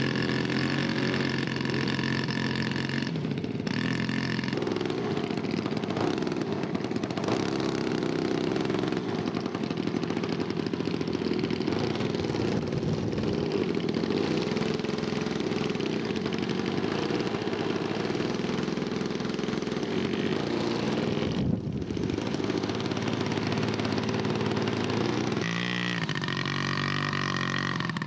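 Large-scale radio-controlled Stearman biplane model's engine running on the ground after start-up. The engine steps up in speed about four seconds in, holds there, falters briefly, then changes speed up and down near the end, with a high steady whine also heard.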